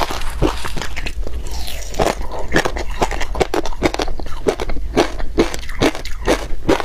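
Matcha-dusted crushed ice being crunched and chewed close to the microphone: a quick, irregular run of sharp crunches, several a second.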